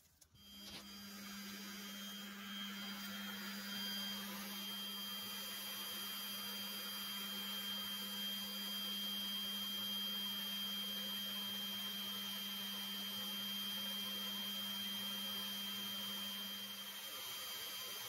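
Bee vacuum running steadily on gentle suction, air rushing through a corrugated hose as honeybees from a swarm are drawn in. It gives a steady low hum with a thin high whine over the rush of air; the hum eases slightly near the end.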